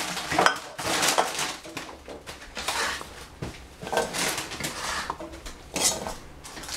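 A stainless steel saucepan handled on a tiled counter while chopped rhubarb pieces are moved from a plastic cutting board into it: a string of short knocks, clatters and scrapes, about one every half second to a second.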